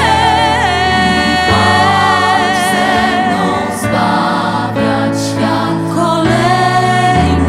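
Mixed vocal ensemble singing in harmony, holding long notes, with a high voice wavering in vibrato near the start.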